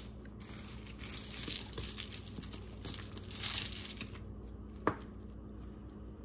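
Packaging crinkling and rustling as it is handled, in uneven bursts for about four seconds, then a single sharp click near the five-second mark.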